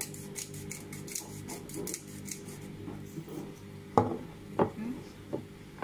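Hand-twisted pepper grinder grinding: a quick run of rasping clicks for about the first two and a half seconds. Then the grinder is set down on the counter with a sharp knock about four seconds in, followed by a few lighter knocks.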